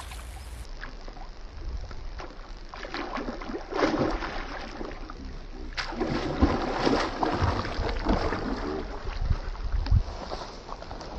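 Pond water splashing and churning in irregular bursts as a hooked catfish thrashes at the surface against the line, over a low wind rumble on the microphone.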